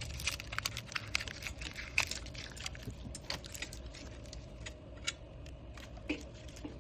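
A wiring harness with taped connectors is handled and fed between a motorcycle's frame and spark plug wire. It gives scattered light clicks and rustles of plastic and wire, busiest in the first half.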